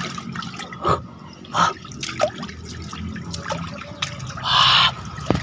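Shallow water running and trickling in a small irrigation channel, with drips and short splashes from a tilapia lifted out of it by hand. A louder splash comes about four and a half seconds in.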